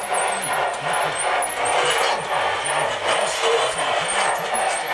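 G-scale LGB model train running on the layout: a steady mechanical whir and rumble of motor, gears and wheels on the track.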